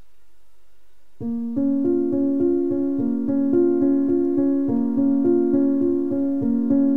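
Background piano music that starts about a second in, with notes struck in a steady, even rhythm; before it, only a faint steady low tone.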